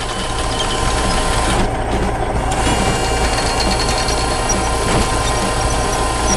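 Heavy construction machine's diesel engine running steadily, a low, even rumble.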